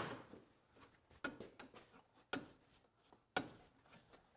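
A few faint clicks and light metal taps, about a second apart, from steel header and exhaust tubes being handled and fitted against the car's underside.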